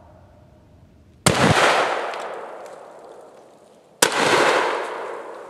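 Side-by-side combination gun (12 gauge and .45-70) fired twice, about two and a half seconds apart: one barrel with a black-powder buckshot load and one with a black-powder .45-70 load. Each very loud shot is followed by an echo that fades over a second or more.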